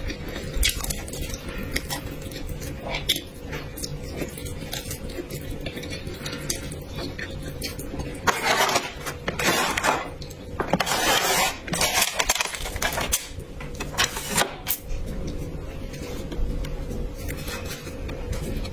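Close-miked eating sounds: cutlery clicking against dishes again and again, with several longer, louder noisy stretches between about eight and fourteen seconds in.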